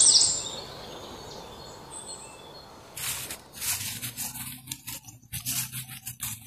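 Birds chirping quickly and repeatedly fade out within the first half second, leaving a steady outdoor hiss. About three seconds in, irregular rustling and crunching of footsteps through grass and undergrowth begins.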